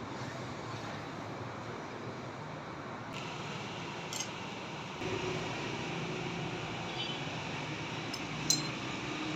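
Metal lathe running steadily, its hum getting louder about halfway through, with a sharp metallic clink near the end.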